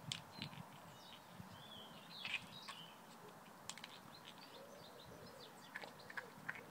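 Birds chirping faintly in the background, with a few soft clicks and taps as a puppy noses and mouths an egg on concrete.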